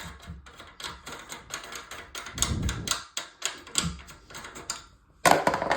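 Rapid, irregular clicking and tapping as the toilet fill valve's mounting nut under the tank is unscrewed, with a louder clatter near the end.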